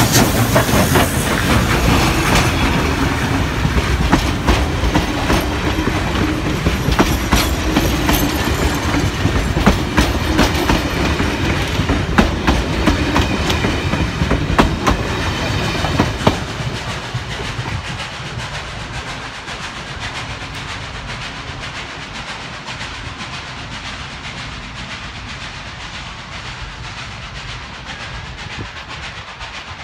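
Steam train passing close: a locomotive's driving wheels and rods go by, then the carriage wheels clicking over the rail joints. The sound fades from about sixteen seconds in as the train moves away down the line.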